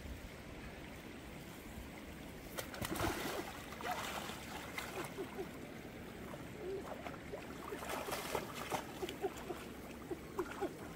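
Water splashing and trickling, with many small irregular splashes and knocks.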